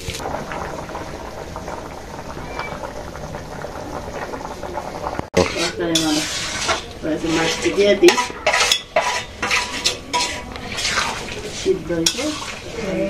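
A metal spatula stirring and scraping through a simmering vegetable curry in a karai (wok), then, about five seconds in, a quick run of sharp metal clinks of utensils against the pan and a steel plate.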